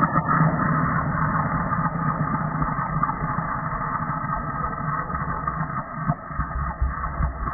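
A dog snarling with teeth bared: a continuous, deep growl with no barks, slowed down.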